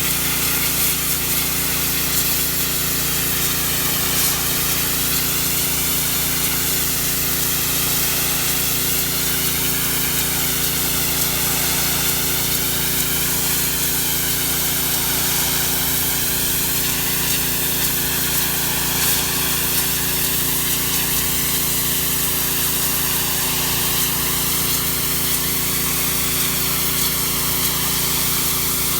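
A pressure washer running steadily, its water jet spraying a surface with a constant hiss that shifts slowly in tone as the spray moves, over a steady machine hum.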